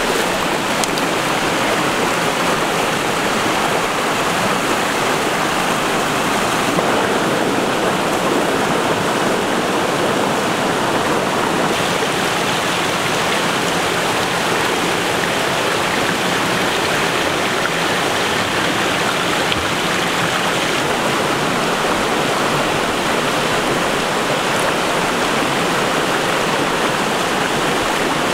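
Fast-flowing rocky stream rushing over and between boulders, a steady, unbroken rush of water.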